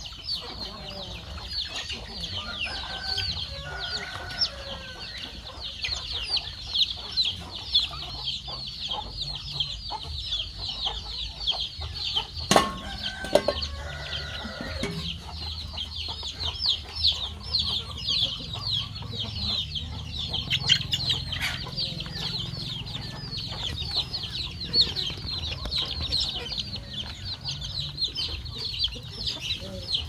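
Many chicks peeping rapidly and continuously, high-pitched, with a hen clucking a few times. One sharp click about halfway through.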